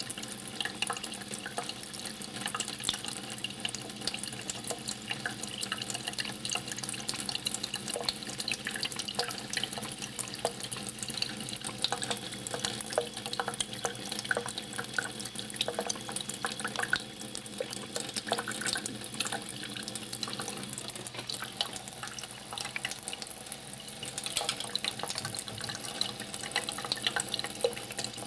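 Thin stream of water running from a sink tap into the basin, with many small irregular splashes and drips as a cat laps at the stream.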